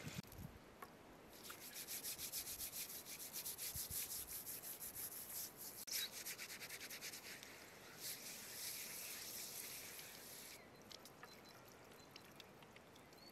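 A dark scouring pad scrubbing a round wooden board, a rasping back-and-forth stroke repeated several times a second. The scrubbing stops shortly before the end, leaving only a faint trickle of water from a hose onto the board.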